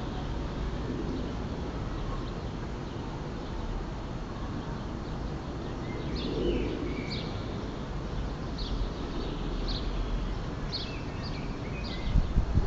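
Steady low outdoor rumble, with a small bird chirping: short, high calls repeated about a dozen times from around halfway. A few low thumps near the end.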